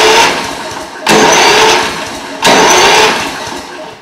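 Electric starter motor of a Briggs & Stratton mower engine cranking it in short bursts, three times, each about a second long and then winding down, without the engine firing because the spark plug wire is off. The starter turns over freely here instead of locking against compression.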